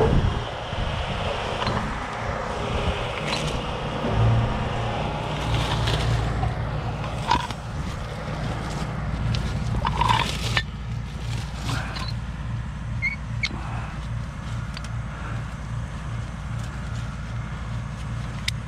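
Heavy tow truck's diesel engine running steadily at idle, a low pulsing drone. Over it come close rustling and crunching through snowy brush, and a few sharp clicks and clinks as recovery rigging is handled.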